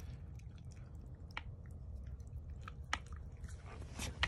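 Rottweiler puppy eating raw meat from a bowl: wet chewing and squishing, with a few sharp clicks, over a low steady rumble.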